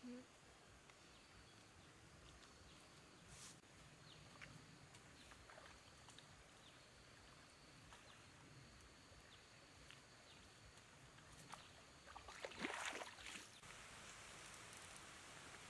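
Near silence: faint outdoor ambience with scattered soft clicks, and a brief crackling rustle about thirteen seconds in.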